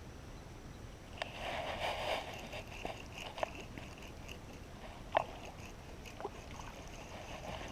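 Scattered light clicks and knocks from handling fishing gear in a small boat, with a short rustle about a second in.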